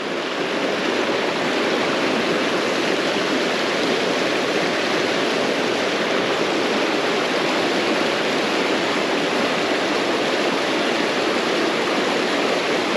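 Creek water rushing steadily over a small riffle into a pool, an even, unbroken rush.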